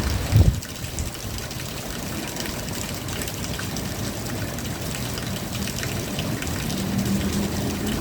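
Steady rain falling, an even hiss, with two short low thumps right at the start and a faint low hum joining near the end.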